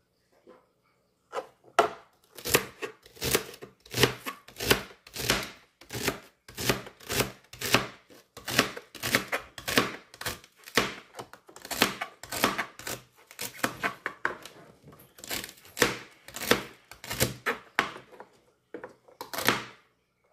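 Chef's knife chopping celery stalks on a plastic cutting board: an even run of chops, about two a second, starting about a second and a half in, with a short pause near the end before a last few cuts.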